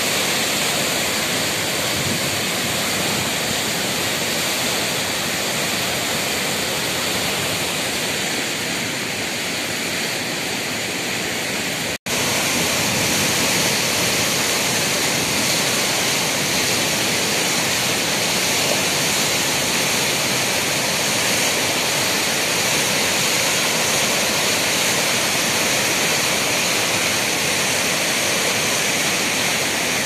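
Fast, silty mountain river rushing through whitewater rapids over boulders: a steady, loud rush. It cuts out for an instant about twelve seconds in.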